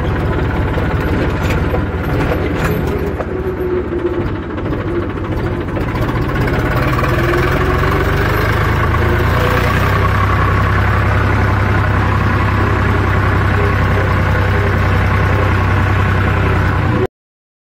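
Tractor diesel engine running, with a few light clicks and rattles at first. About six seconds in it picks up and runs louder and steadier, then cuts off suddenly near the end.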